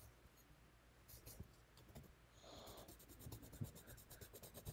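Colored pencil scratching on paper in quick back-and-forth shading strokes. Faint at first, then denser and a little louder from about halfway through.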